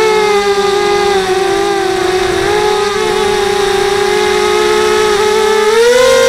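Brushless motors and propellers of a QAV250 racing quadcopter whining as it flies, heard from a camera on the craft. The pitch sags a little about two seconds in and rises near the end as the throttle comes up.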